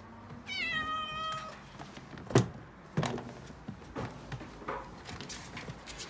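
Calico kitten giving one long panicked meow lasting about a second, followed by a string of sharp knocks and thumps as she thrashes about in a wire cage. The loudest knock comes about a second after the meow.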